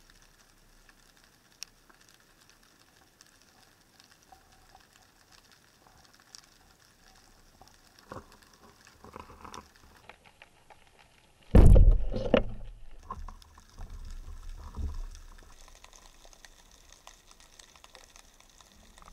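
Underwater, a speargun fires a little past halfway: one sudden loud crack with a deep thud that dies away over about a second, the shot that spears a brown meagre. A few weaker knocks follow over the next few seconds, and before the shot there are only faint scattered underwater clicks.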